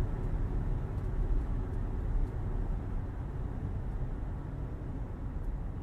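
Steady low rumble of road noise heard from inside a moving car, easing off slightly toward the end.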